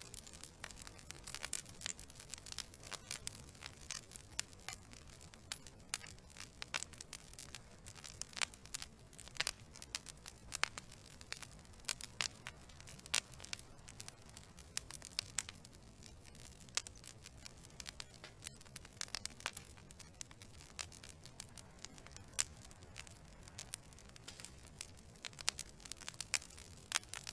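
Wood fire burning in a fireplace: logs crackling and popping in irregular snaps over a low steady rumble of the flames.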